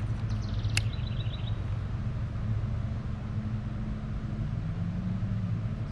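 Steady low rumble of wind buffeting the microphone, with a single sharp click about a second in as the air rifle is handled between shots.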